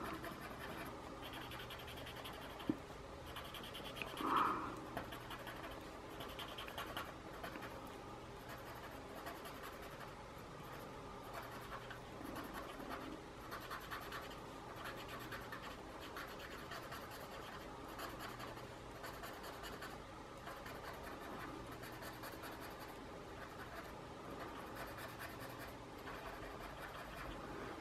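Paper blending stump rubbing graphite shading into drawing paper: faint, soft scratching that goes on and off as the stump moves, with a brief louder sound about four seconds in.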